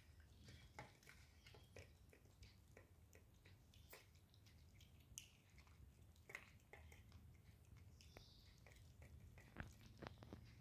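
Two kittens eating cooked rice from a steel plate: faint, irregular chewing and lapping with small clicks.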